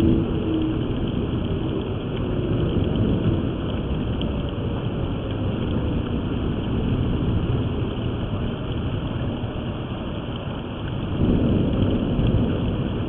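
Outdoor tornado warning siren winding down in pitch over the first seconds, then winding back up about eleven seconds in. Under it, a steady hiss of rain.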